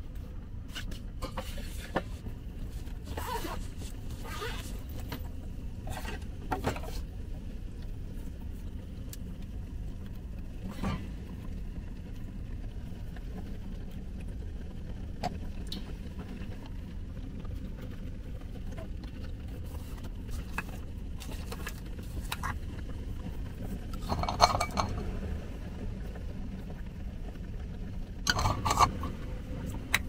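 Small seasoning bottles and their caps clinking and tapping as they are handled, shaken over a metal tin and put down. There are scattered light clicks, then louder clusters of clinks near the end. A steady low rumble runs underneath.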